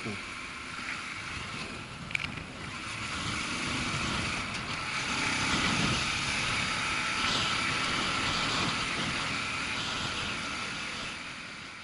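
Motorcycle engine running under wind rush while riding at road speed, growing louder from about four seconds in and easing off near the end. A sharp click about two seconds in.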